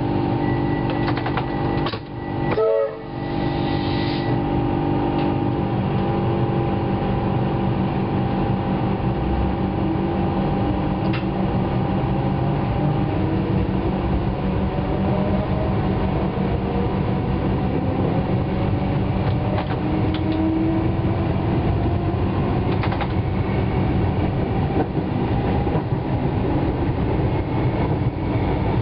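Comeng electric multiple unit pulling away and accelerating, heard from the driver's cab: the whine of its traction motors and gears rises slowly in pitch as it gathers speed, over the steady rumble and clatter of wheels on the track.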